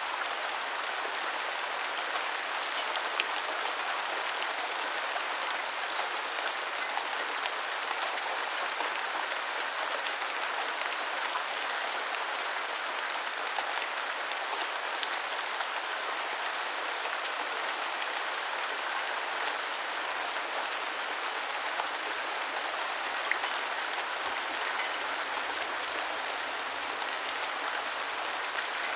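Steady rain falling, a constant hiss flecked with many small drop ticks.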